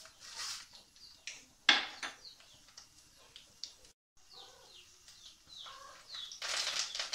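Hot oil with mustard seeds and urad dal sizzling faintly in a kadai during tempering, with a sharp clack about two seconds in; from about six and a half seconds a much louder sizzle as curry leaves hit the hot oil. A bird chirps repeatedly in the background, short falling chirps.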